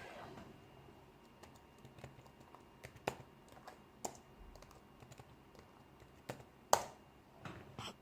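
Faint, irregular clicks and taps from a laptop as it is being started up, spaced a second or so apart, with one sharper, louder click near the end.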